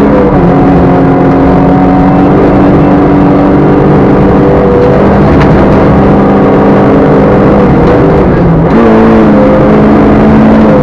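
Rally car engine heard loud from inside the cabin, running hard at high revs over steady road noise. The engine note drops and climbs again at gear changes near the start and about nine seconds in.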